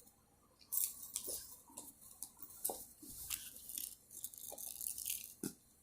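Small plastic fidget toys being handled and rummaged through: irregular light clicks, clacks and rustles.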